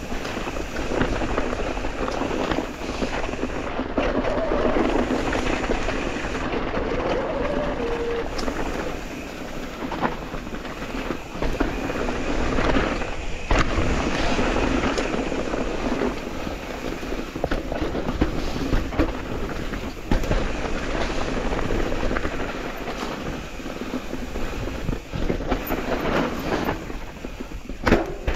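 Mountain e-bike rolling over a rough trail: continuous tyre and drivetrain noise with frequent knocks and rattles over bumps.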